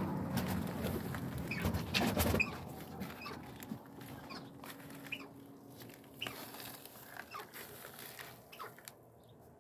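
Penned birds calling: short clucks and chirps scattered through, after a louder stretch of rustling in the first two and a half seconds.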